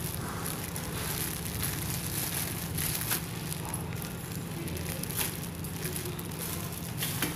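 Polythene bag over a hand rustling and crinkling while a pizza slice is handled, over a faint steady crackle of a pizza cooking on a lidded tawa, with a few sharp clicks.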